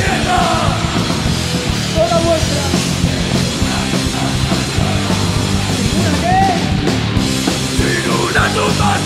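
Metal band playing live at full volume: electric guitars, bass and drums.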